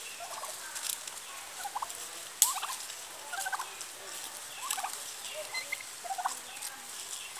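Domestic turkeys giving short calls about once a second, with a sharp click about two and a half seconds in.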